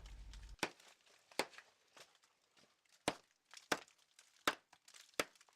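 A series of short, sharp knocks, about one every three-quarters of a second, over a quiet background: steps or blows on a forest trail.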